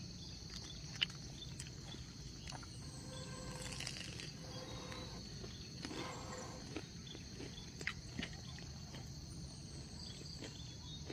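Steady high-pitched insect chorus in forest, with a low rumble beneath and scattered sharp clicks, the loudest about a second in.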